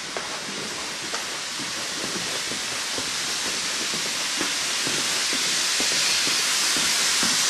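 Footsteps of people walking, with faint knocks about twice a second, under a steady hiss that grows louder toward the end.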